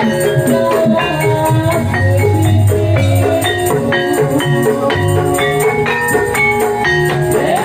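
Gajah-gajahan folk band music: a melody of short, stepping notes over drums and bass, with a steady high jingling beat like a tambourine. No singing.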